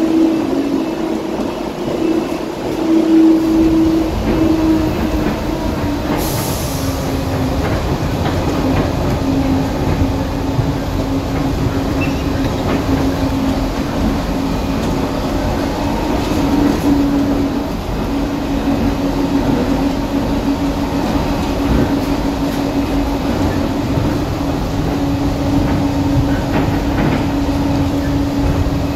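DFW Skylink automated people mover (Bombardier Innovia APM 200) running along its elevated guideway, heard from inside the car: a steady hum over a low running rumble that grows about three seconds in. A brief hiss comes about six seconds in.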